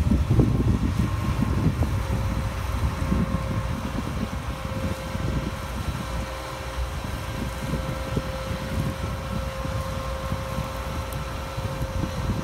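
John Deere combine harvester's diesel engine running as the machine drives and turns slowly, with a steady whine through most of it. Wind buffets the microphone, heaviest near the start and the end.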